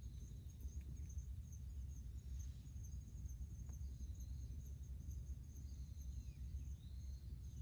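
Outdoor ambience: insects chirring in a steady, high, pulsing trill, with a few short bird calls in the second half, over a low steady rumble.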